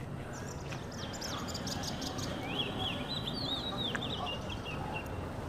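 Small birds chirping in quick runs of short, high, up-and-down notes over a steady background hiss.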